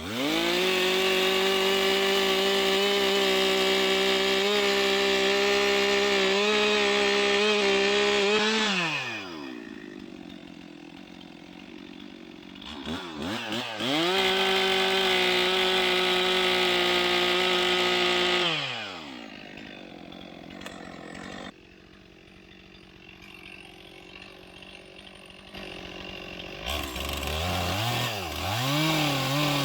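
Two-stroke chainsaw held at full throttle cutting for about eight seconds, then dropping back to idle. It revs up and cuts again for about five seconds before dropping back, and near the end it runs lower with uneven bursts of throttle.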